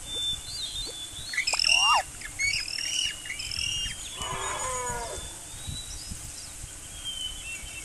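Birds chirping and whistling in quick, high notes, with a short pitched animal call of several notes falling in pitch about four seconds in.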